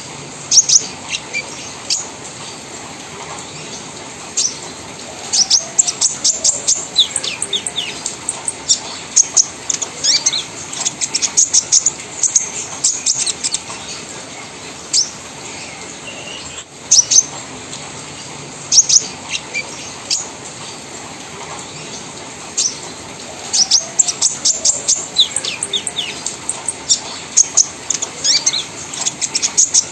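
Caged kolibri ninja sunbird singing in rapid chattering bursts of sharp, high chirps and trills, broken by short pauses.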